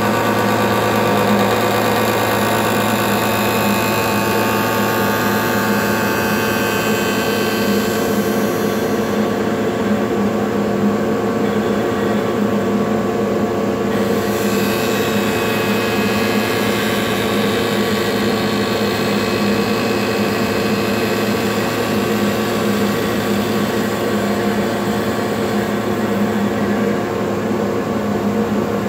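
Spindle shaper with a power feeder running steadily while a curved wooden workpiece in a radius jig is fed past the cutter: a loud, even machine hum with several held tones. Its higher part drops away for a few seconds from about nine seconds in.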